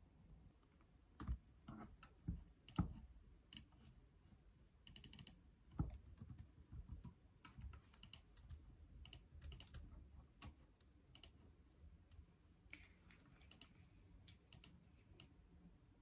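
Typing on a laptop keyboard: irregular light key clicks, with a few louder knocks in the first six seconds.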